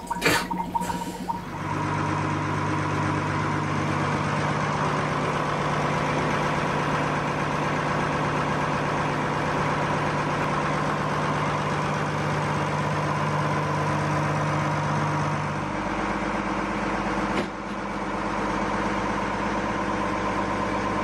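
The boat's inboard engine, just fitted with a new thermostat and gasket and refilled with coolant, running steadily at idle. Its tone shifts slightly about three-quarters of the way through.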